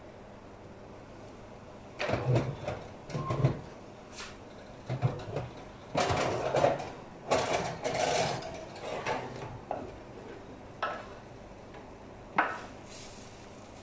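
Metal oven rack and enamelled roasting tray clattering and scraping as the tray is handled and pulled out, in an irregular run of knocks and scrapes. Two sharp knocks near the end as a wooden spoon strikes the tray.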